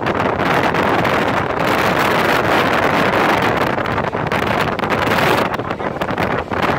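Steady, loud wind rushing over the microphone on a moving vehicle, with the vehicle's running noise underneath.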